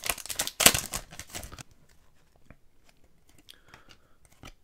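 Foil hockey card pack wrapper being torn open and crinkled, dying down after about a second and a half.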